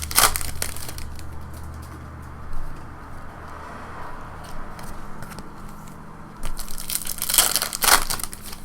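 Foil trading card pack wrapper crinkling as it is torn open and handled, in a crackly burst just after the start and a longer one about seven to eight seconds in, with quieter rustling between.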